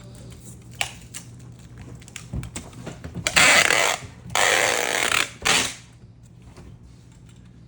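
Packing tape pulled off the roll to seal cardboard box flaps: two long pulls of about a second each, then a short one, after a few light knocks of cardboard.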